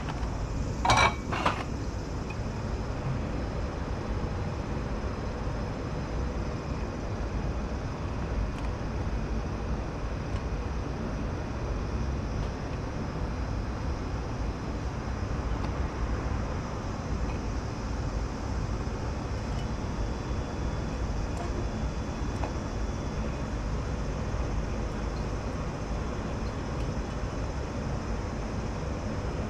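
Steady low rumble of kitchen room noise, with a brief ringing metallic clatter about a second in as kitchenware is handled.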